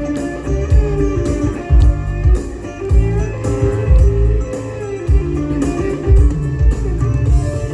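Live band music with no singing: a guitar leads over bass and drums with a steady beat.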